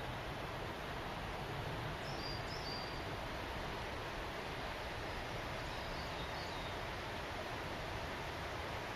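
Running water: a steady, even rushing hiss. A few faint, short, high bird chirps come about two seconds in and again about six seconds in.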